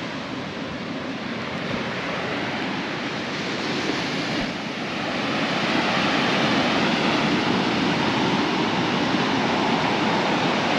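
Sea surf washing onto a beach: a steady rush of waves that grows a little louder about five seconds in.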